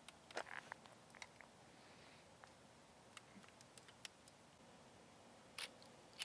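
Near silence, with faint scattered clicks and ticks: a small cluster about half a second in, a few single ticks in the middle, and two sharper clicks near the end.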